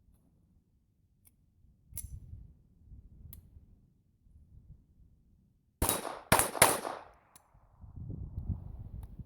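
Three quick shots from a Smith & Wesson Victory .22 LR semi-automatic pistol, all within about a second, each a sharp crack with a short high ring. A few faint clicks come before them, and a low rumble follows.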